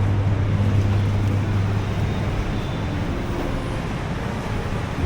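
A low engine hum, loudest at first and fading after about two seconds, over a steady wash of outdoor traffic noise.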